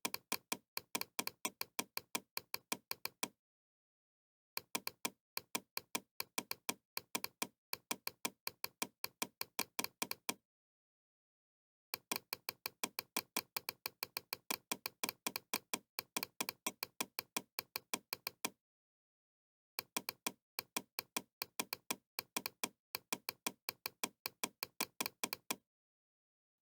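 Bandicam's mouse-click sound effect: rapid runs of sharp clicks, several a second, each run lasting a few seconds and broken off by short gaps of dead silence.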